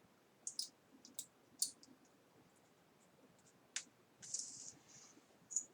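Light, sharp clicks and taps of tiny 2 mm screws and a small screwdriver being handled on a laptop's screen frame, coming irregularly, with a short scrape about four seconds in.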